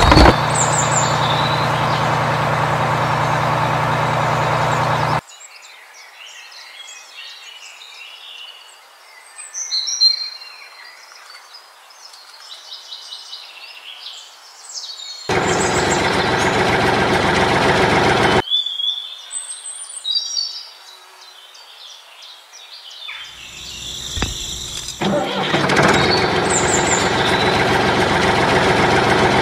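Vehicle engine running in three stretches that start and stop abruptly, with birds chirping in the quiet gaps between them.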